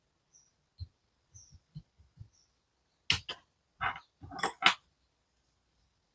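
Hobby bench work on a small model car: a few soft taps, then a quick cluster of sharp clicks and short scrapes from hand tools and small metal and plastic parts about three seconds in.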